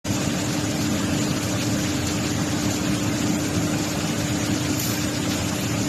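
Steady noise of automatic welding equipment running: a constant hum over an even hiss, starting abruptly.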